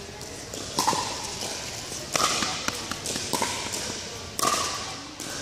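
Pickleball paddles striking a hollow plastic ball: about four sharp pocks roughly a second apart, each with a short ring.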